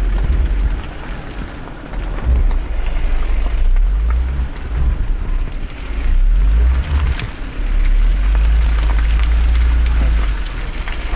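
Jeep driving off-road, a heavy, uneven low rumble that swells and eases every second or two over a steady noisy hiss.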